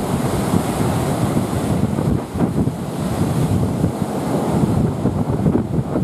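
Storm surf breaking and washing up a sandy beach, a constant low rush, with strong wind buffeting the microphone.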